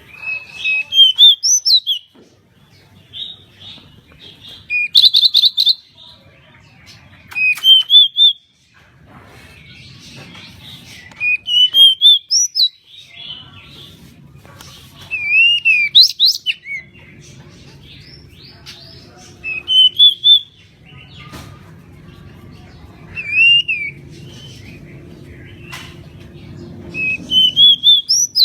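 Pied bushchat singing: short phrases of rising whistled notes, repeated about every three to four seconds, with a faint low rumble between phrases.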